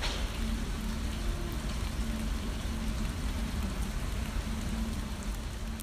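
Steady, dense crackling hiss like falling rain, with a faint low hum that comes and goes.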